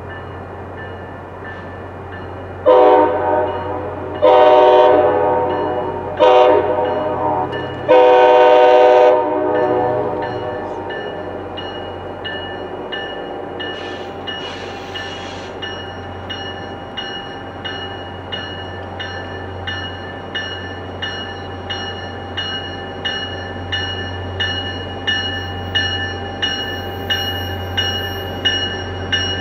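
MBTA F40PH-3C diesel locomotive sounding its horn as it approaches: four loud blasts of a second or more each, a chord of several notes. After that a bell rings steadily with evenly spaced strokes, growing slightly louder toward the end.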